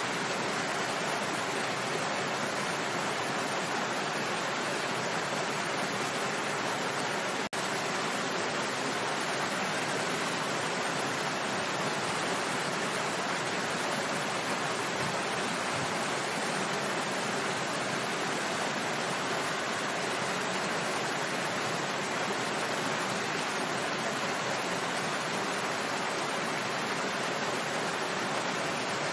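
Small waterfall splashing steadily, an even rush of falling water with no change in level, except one momentary dropout about seven and a half seconds in.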